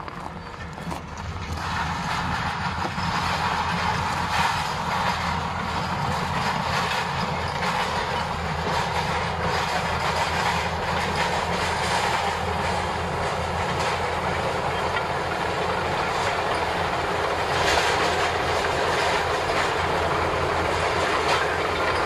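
Shantui SD22K crawler bulldozer working, its diesel engine running steadily under load with the clanking clatter of its steel tracks as it pushes snow and ice. The sound grows louder about two seconds in as the machine comes closer.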